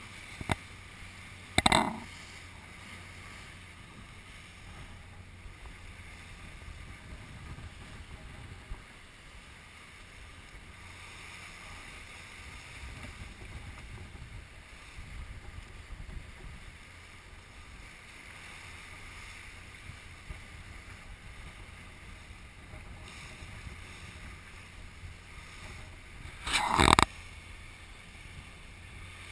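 Rigid inflatable boat running at speed through rough, wavy sea: a steady low rumble and hiss, broken twice by a short loud hit, about two seconds in and again near the end.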